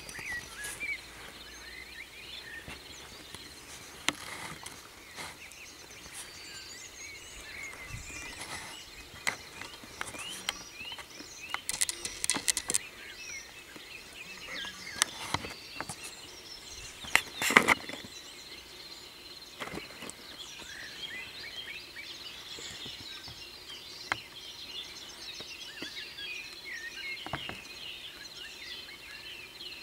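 Birds chirping in the background, many small calls throughout, with scattered sharp clicks and crackles. The loudest crackle comes about two-thirds of the way through.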